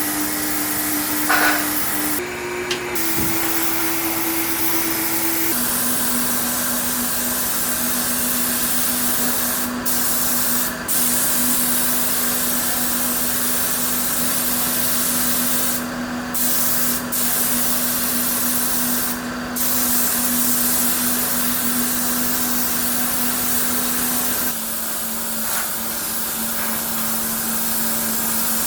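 Compressed-air spray gun hissing in long passes, cut by a few short breaks where the trigger is let off, over the steady hum of a running machine.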